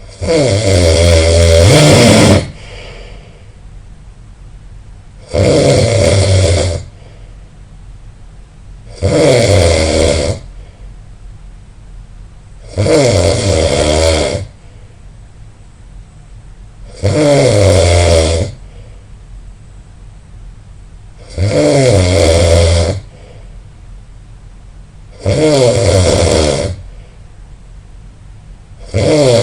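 A person snoring loudly in a steady rhythm, one snore about every four seconds, each lasting about a second and a half, with quiet breathing gaps between them.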